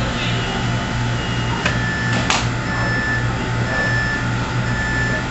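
An electronic alarm in a fast-food restaurant beeping over and over, about one high beep a second, starting about a third of the way in. Under it runs a steady low hum, and two sharp clicks come around the time the beeping starts.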